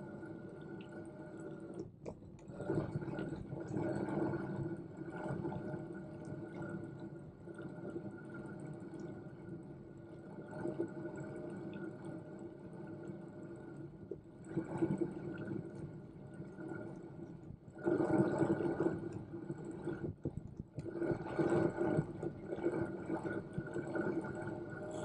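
Riding noise of a Brompton Electric bike: a steady hum of unchanging pitch, typical of its motor under assist, beneath wind and tyre rumble that swells several times and drops away briefly twice.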